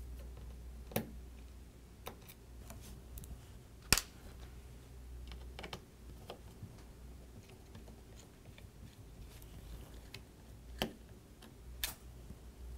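Small Phillips screwdriver backing screws out of a MacBook's AirPort card: quiet, scattered light clicks and ticks of the metal tip on the screws and hands on the case, the sharpest about four seconds in.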